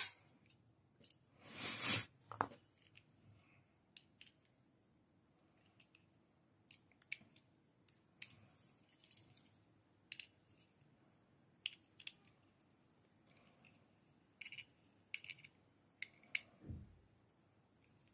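A sharp click at the start from the reassembled out-the-front automatic knife in hand, then a rustle about two seconds in and scattered faint taps and clicks of the knife and small tools being handled and set down on a leather mat.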